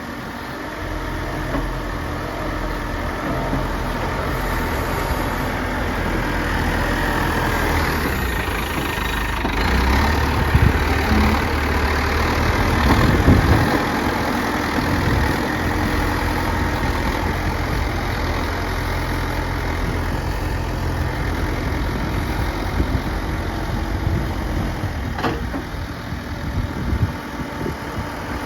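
Heavy machine's engine running steadily, picking up and growing louder for a few seconds about ten seconds in, then settling back, with a single sharp knock near the end.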